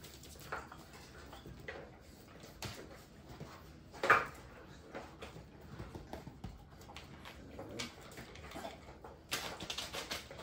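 Bullmastiff puppies playing and scuffling, their paws and bodies clattering on a hard floor, with short puppy vocal sounds and one louder yelp about four seconds in.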